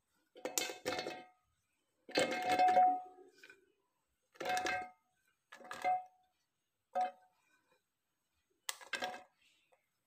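Sliced carrot pieces dropped into a stainless steel mixer-grinder jar in about six batches. Each drop clatters against the metal and leaves the jar ringing briefly.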